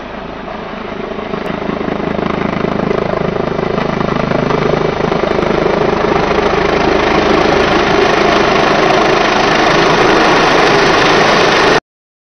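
Rescue helicopter's rotor and turbine noise as it approaches low overhead, growing steadily louder, then cutting off suddenly near the end.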